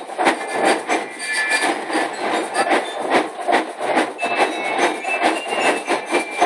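Marching band drum line of snare and bass drums playing a steady cadence, about three beats a second, with a few high bell-lyre notes ringing over it.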